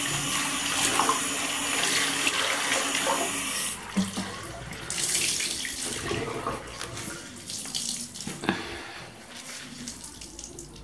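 Water running from a bathroom sink tap as a soaked microfibre chenille mop pad is rubbed and rinsed under it. About four seconds in the steady flow sound drops away, leaving irregular splashes and drips as the pad is squeezed and wrung out over the basin.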